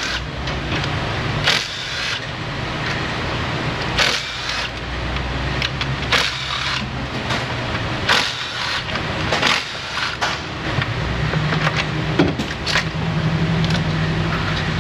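Engine wiring harness being worked free by hand: irregular clicks, snaps and rattles of plastic connectors and harness clips being unclipped, over a low steady background hum.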